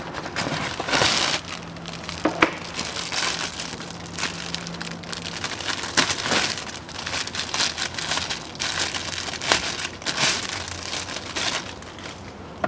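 Plastic wrapping and a cardboard box crinkling and rustling as a new cabin air filter is unpacked by hand: irregular crinkles with a few sharp clicks.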